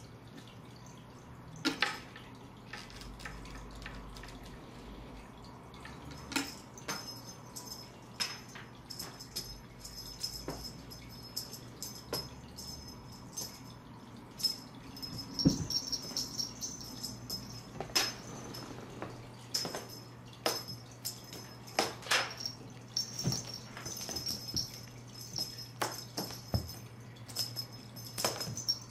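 The small metal charm on a cat's collar jingling in short bursts of high ringing as the cat moves, among scattered light clicks and taps of the cat on a wooden box. A steady low hum runs underneath.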